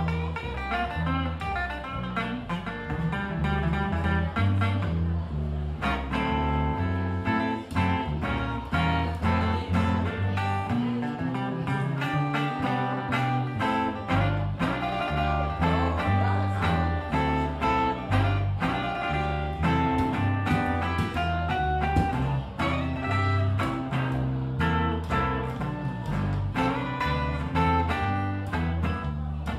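Acoustic guitar and upright double bass playing a Chicago blues instrumental passage, the guitar picking over a stepping bass line. The bass drops out for a couple of seconds near the middle.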